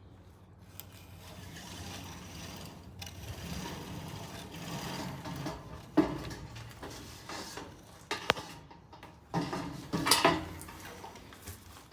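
A string being pulled to hoist a bucket, with rubbing and scraping that swells over the first few seconds, a sharp knock about six seconds in, and a cluster of knocks and scrapes near the end.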